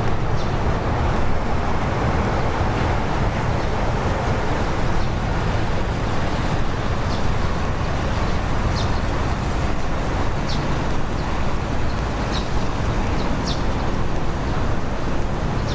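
Steady engine drone with an even rushing noise, and a handful of short high chirps over it.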